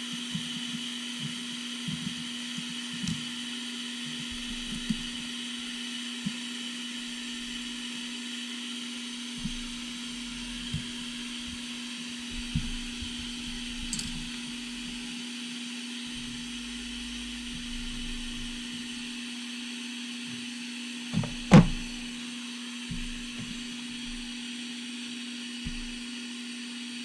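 Hot-air rework station running steadily: a constant hum with an airy hiss. Light taps and clicks of tools on the board come and go, with a louder knock about three-quarters of the way through.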